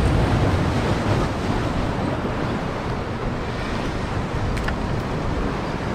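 Waves breaking and washing against jetty rocks, a steady loud rush, with wind buffeting the microphone. Two faint clicks sound near the end.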